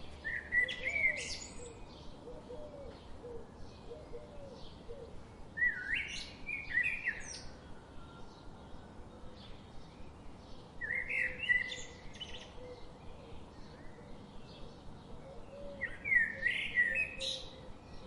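A songbird singing a short, loud phrase about every five seconds, four times, over fainter chirping from other birds in the forest.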